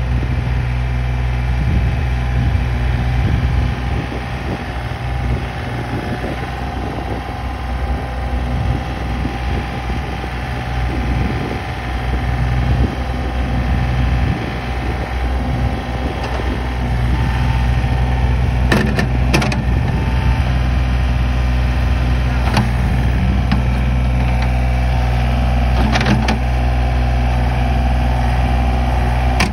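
Compact utility tractor's engine running steadily as its front-end loader pushes and carries dirt, with a few sharp clanks partway through and near the end.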